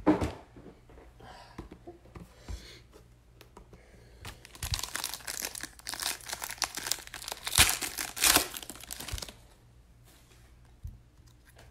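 Foil wrapper of a Gold Standard trading-card pack being torn open and crinkled by hand: crackling from about four seconds in, dying away after about nine seconds. A short knock of the pack being handled comes right at the start.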